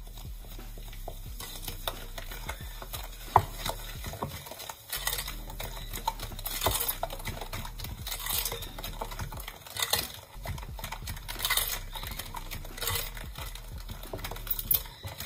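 Wooden spoon stirring and mashing raspberries with sugar in a glass bowl to dissolve the sugar. It makes repeated scraping strokes, about every second and a half later on, with a sharp knock of the spoon against the glass about three seconds in.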